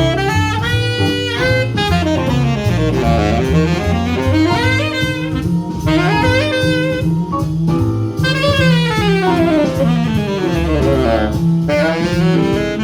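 Jazz music: a saxophone playing fast runs that climb and fall over bass and drums.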